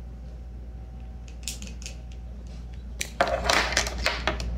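Light clicks of plastic measuring spoons being handled, then a louder clatter and rustle about three seconds in as they are set down on the wooden table.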